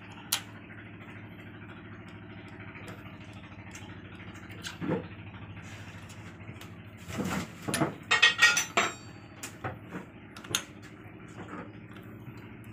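Metal-on-metal clinks and knocks of a socket wrench and loose steel parts on an Isuzu diesel cylinder head: single clicks here and there, then a burst of loud ringing clanks about seven to nine seconds in. A low steady hum runs underneath.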